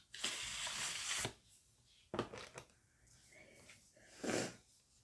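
Cardboard and paper packaging being handled as an eyeshadow palette box is opened: a noisy rustling slide about a second long near the start, then two shorter rustles.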